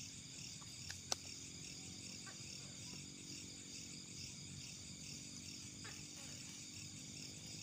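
A small campfire of sticks and twigs being tended, with one sharp crack about a second in and a few fainter clicks, over a steady pulsing chorus of night insects.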